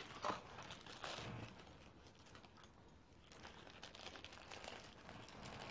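Faint rustling with scattered small clicks: handling and clothing noise picked up by a clip-on lavalier microphone as the wearer moves.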